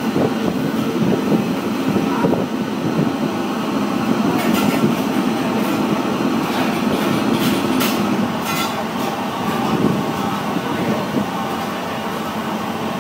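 Steady mechanical din of a commercial kitchen, the hum of its exhaust fans and burners, with a few sharp clicks and clatters around the middle.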